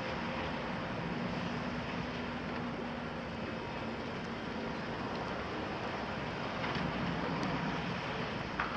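Excavator diesel engines running steadily across a demolition site, with a short clank near the end.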